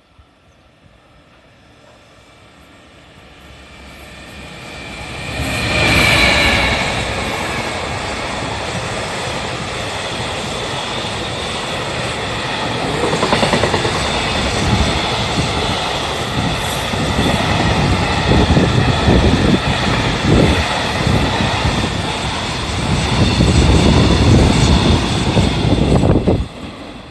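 Freight train hauled by a JR Freight EF210 electric locomotive passing through a station at speed: a rumble builds over the first few seconds, the locomotive goes by loudly about six seconds in with a brief high tone, then a long string of container wagons rumbles and clacks over the rail joints for some twenty seconds.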